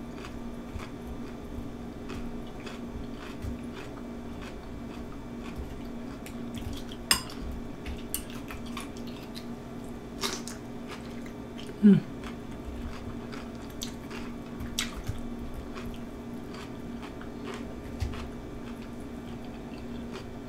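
Metal fork clinking and scraping in a glass bowl of cucumber slices in ranch dressing, with a few louder clinks, and soft chewing of cucumber between them. A steady low hum runs underneath.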